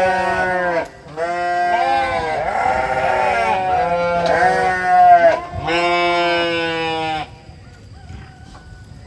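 Goats bleating: a run of long, wavering calls, several overlapping, that stop about seven seconds in, leaving only faint sounds.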